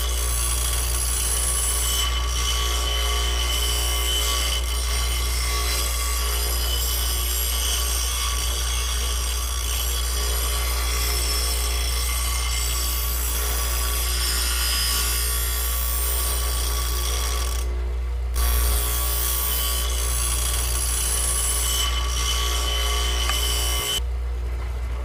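Mini electric die grinder (rotary tool) running with a small abrasive grinding stone, grinding down the heads of thick iron nails: a steady high-speed whine with a rasping grind. The grinding breaks off briefly about 18 seconds in and again near the end.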